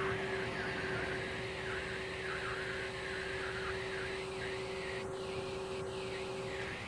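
Truck-mounted knuckle-boom crane's hydraulics running with a steady whine as it lifts a heavy diesel engine on chains. The whine cuts out briefly near the end.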